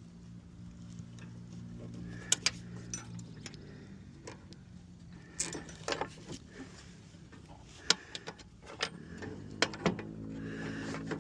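Scattered metal clinks and knocks of mower deck hardware being handled and fitted, a dozen or so sharp clicks at uneven intervals, over a steady low hum.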